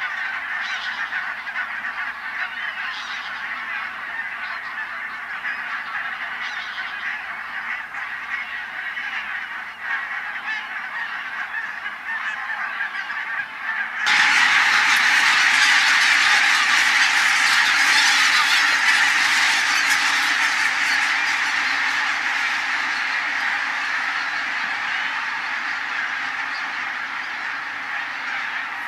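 A large flock of geese honking and calling together in a dense, unbroken chorus. About halfway through it suddenly gets louder, then slowly eases off.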